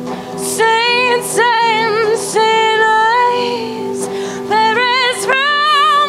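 A woman singing a slow song live, her voice rising in held, wavering phrases that start about half a second in, over steady held notes of guitar accompaniment.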